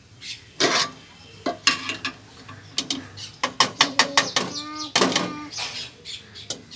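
A steel ladle and tea strainer clinking and knocking against a steel cooking pot, in a quick series of sharp metal clinks.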